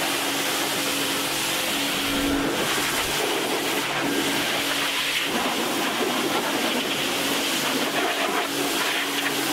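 Pressure washer running steadily, its jet hissing as it rinses a boat hull and outboard motor leg, over the even hum of the washer's motor.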